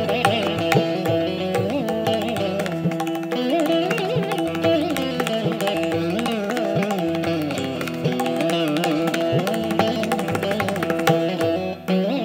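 Carnatic music: a Saraswati veena plays a melody full of sliding, bending notes over steady held tones, with mridangam drum strokes throughout.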